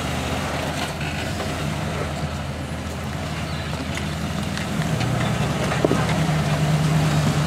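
Jeep Cherokee's engine running at low revs as it crawls over boulders, pulling harder about two-thirds of the way in. There is a single sharp knock near the end.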